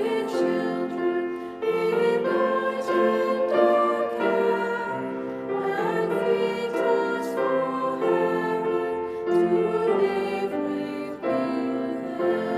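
Choristers singing a song with piano accompaniment, in held phrases.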